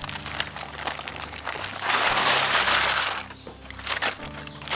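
Aluminium foil crinkling and rustling as it is pulled open by hand, loudest for about a second around the middle.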